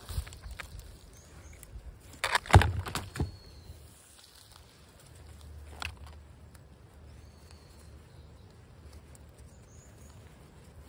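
Close-up handling of a rain-poncho shelter and its guy cord: sharp rustles and knocks as the cord is tied off on a wooden stake, loudest about two and a half seconds in. After that come softer, sparser rustles as the poncho's edge is pulled and adjusted.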